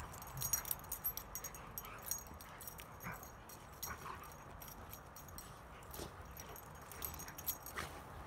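A Rottweiler and a husky play-fighting: short whines and yips come now and then, over a near-constant jingle of metal collar tags as they tussle.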